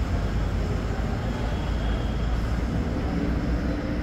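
Steady low rumble of an idling truck diesel engine.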